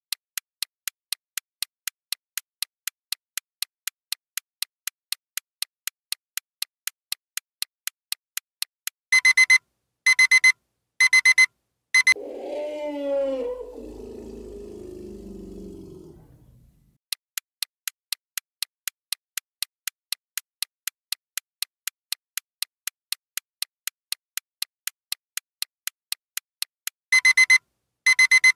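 Countdown timer sound effect: a clock ticking steadily, then four short alarm-clock rings. An elephant trumpets, wavering and falling into a low rumble, then the ticking starts again and two more rings sound near the end.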